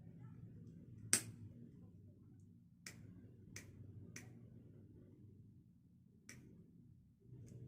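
Six sharp, irregular clicks or taps of hard objects over a faint low steady hum, the loudest about a second in.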